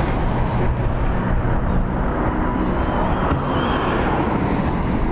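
Steady outdoor rumble of road traffic mixed with wind on the microphone, with a faint high whine about three and a half seconds in.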